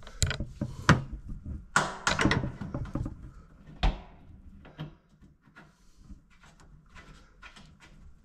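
Ratchet wrench clicking and metal tools knocking while bolts are worked on a steel diesel tank. Irregular sharp clicks and clinks, the loudest in the first four seconds, then lighter clicks.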